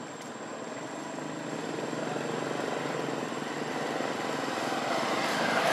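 A motor vehicle engine running with a steady low hum, growing gradually louder as it approaches.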